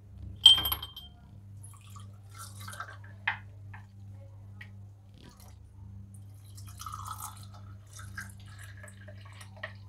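An ice cube dropped from a steel spoon clinks into a clay kulhad cup about half a second in. Buttermilk is then poured into the clay cups, making faint splashing of liquid over a steady low hum.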